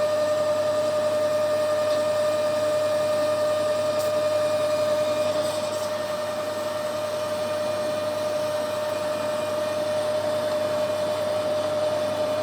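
Metal lathe running at speed with a steady whine, turning a workpiece held in a collet chuck; the sound drops a little in level about halfway through.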